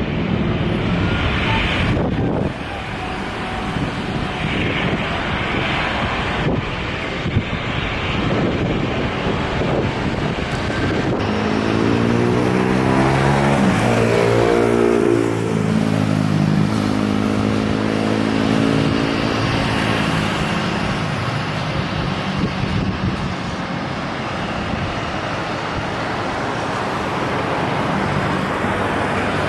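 Wind buffeting the microphone, then about twelve seconds in an engine's hum whose pitch slides up and down as it passes, settling into a steady drone for the rest.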